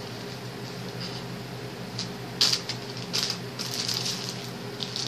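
Hands rustling and shuffling crocheted lace pieces, in short scratchy bursts starting about two seconds in, over a low steady hum.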